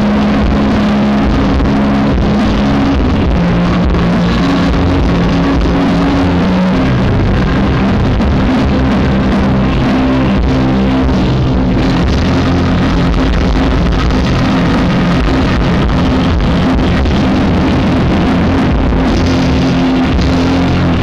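Loud live rock band music through a concert PA, recorded on a camera microphone that is faulty, so the sound comes out muddy and distorted, dominated by held low notes.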